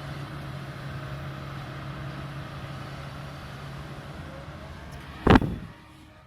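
Kobelco 220 excavator's diesel engine running steadily, with one loud thump about five seconds in, after which the sound drops away.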